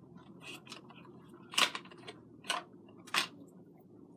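Plastic spiralizer blade inserts being handled, giving three sharp clicks spaced under a second apart near the middle, with faint small taps between.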